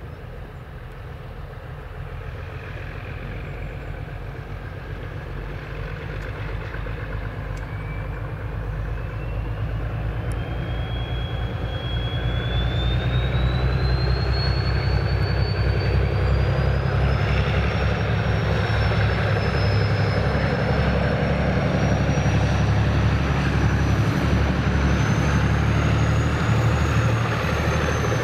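Diesel locomotive engine running under power, growing louder over the first dozen seconds and then holding steady, with a thin high whine that climbs steadily in pitch from about a third of the way in.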